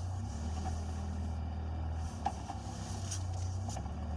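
UAZ Patriot engine running steadily at low revs, with short sharp knocks from the drivetrain about two and three seconds in. This is the knock that comes when the clutch pedal is pressed, which the owner places around the transfer case and cannot explain.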